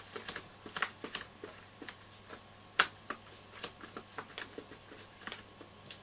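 Roberts R200 transistor radio at full volume giving only faint, scattered clicks and crackles as its tuning knob is turned, one louder click about three seconds in, over a faint steady hum. The set is barely working, a fault the owner suspects lies in its AF117 transistors.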